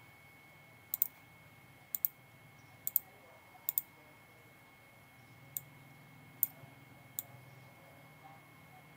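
Computer mouse button clicking: four quick pairs of sharp clicks about a second apart, then three single clicks.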